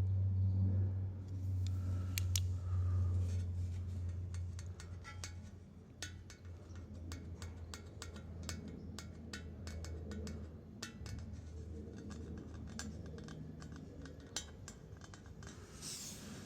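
Small metal parts of a dismantled CVT clinking and ticking as they are handled, in a string of short irregular clicks. A low steady hum fades out about ten seconds in.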